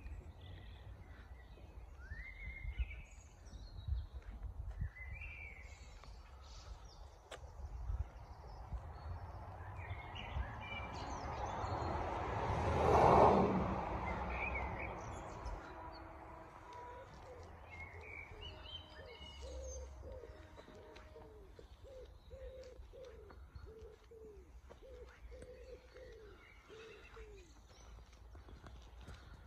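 Small birds chirping in the trees over a low background rumble. About halfway through, a rush of noise swells up and fades away, and near the end a lower call repeats about twice a second.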